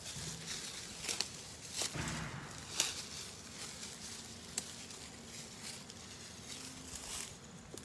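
Footsteps crunching and rustling through dry leaves and undergrowth, with sharp snaps of twigs now and then.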